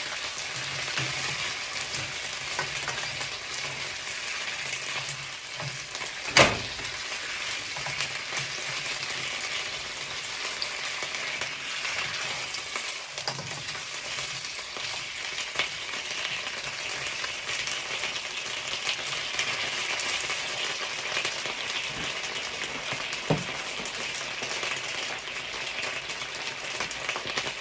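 Chicken wings in oyster sauce sizzling in a nonstick pan on a gas burner, being stirred and turned with a spatula. A sharp knock stands out about six seconds in, and a fainter one comes near the end.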